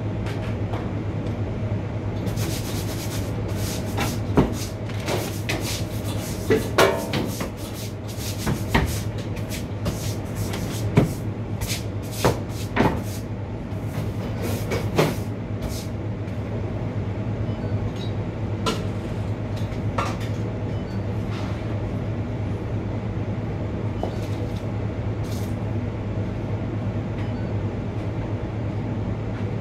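A steady low machine hum, with a run of sharp knocks and clatters through the first half as parts and equipment at a soft-serve machine are handled, then only a few.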